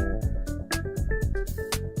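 Background music: an upbeat track with a steady drum beat and short keyboard notes.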